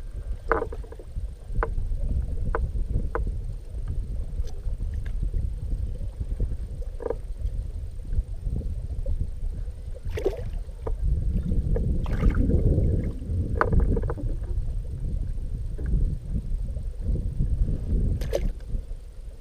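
Steady low rumble of wind and water around a small fishing boat, swelling for a few seconds midway, with scattered light clicks and knocks.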